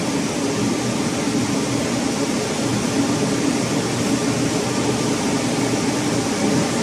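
Steady machinery drone of a ship's running inert gas generator plant, a dense even noise with a low hum underneath.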